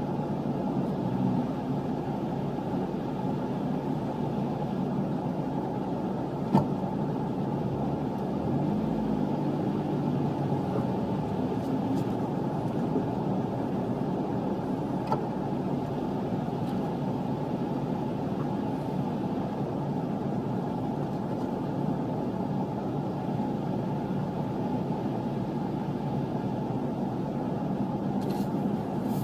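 Opel Astra H OPC's turbo four-cylinder idling at a standstill, then switched off about nine seconds in, while a steady low rumble carries on. One sharp click about six and a half seconds in.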